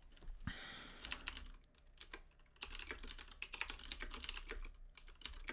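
Typing on a computer keyboard: quick runs of key clicks, with a short lull around two seconds in.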